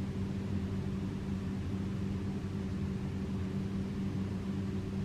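Steady low hum with a faint hiss, unchanging throughout: room tone.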